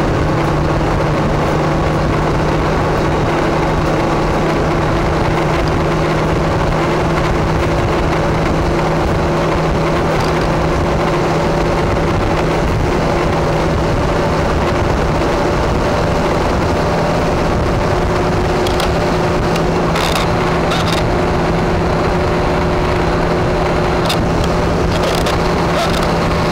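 Motor vehicle cruising at highway speed: a steady engine tone that holds one pitch, mixed with wind and road noise. A few short knocks come in the last third.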